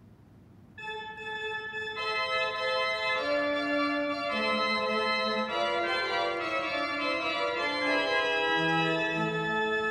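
Church organ playing, from a three-manual console: a single held note comes in about a second in, then fuller sustained chords join from about two seconds in and move slowly.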